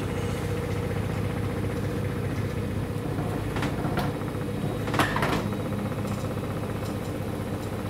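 Samsung WW10N645RBW front-loading washing machine in its spin cycle, a steady low hum with the cabinet shaking, which the owner puts down to the machine not standing level. A few sharp knocks come in the middle, the loudest about five seconds in.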